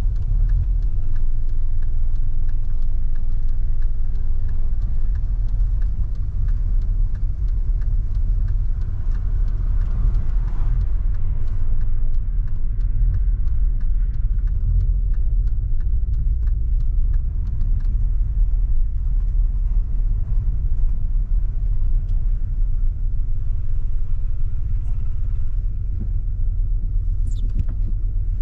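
Audi A3's 1.8T turbocharged four-cylinder engine running with a steady low rumble, in limp mode with power cut and a rough idle from fault code 17743.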